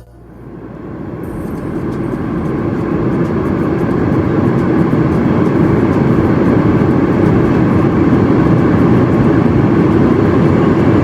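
Steady rushing cabin noise of a Boeing 787-8 in cruise, airflow and engine noise heard inside the cabin, fading in over the first few seconds.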